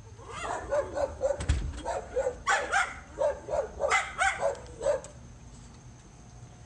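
Neighbour dogs barking over a backyard fence: a rapid string of barks that stops about five seconds in, with a low thump about a second and a half in.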